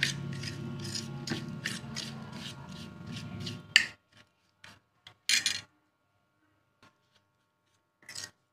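Metal spoon scraping and stirring coarse, damp spice masala on a steel plate, at about two to three strokes a second. After about four seconds a sharp click, then only a few separate short scrapes.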